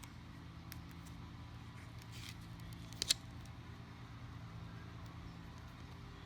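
Steady low electrical hum with a few faint clicks of a small device being handled; a short rustle just after two seconds and a brief sharp double click about three seconds in.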